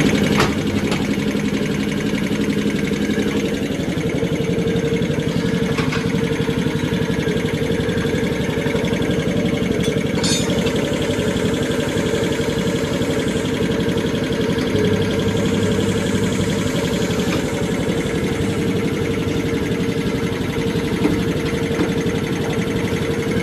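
A steady machine hum over a constant background of workshop noise, with a few faint clicks.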